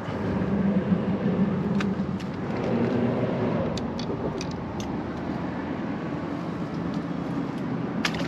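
A motor engine running steadily nearby, its low hum swelling about a second in, with a few light clicks over it. Near the end a small splash as the released fish drops into the water.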